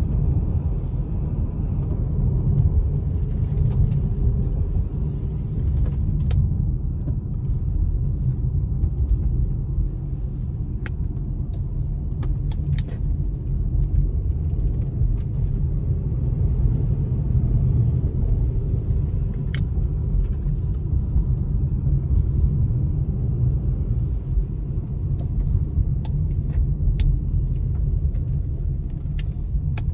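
Steady low rumble of a car driving on a wet road, heard from inside the cabin, with a few faint clicks scattered through it.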